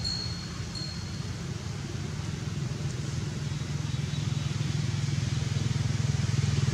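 A motor vehicle engine running with a steady low hum, growing louder over the last couple of seconds.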